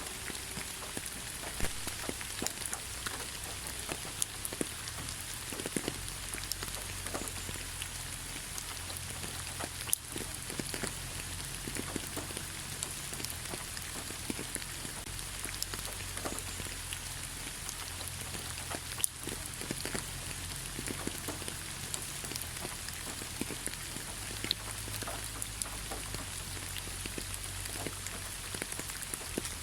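Light rain falling steadily, with many scattered drops tapping on leaves over a constant soft hiss.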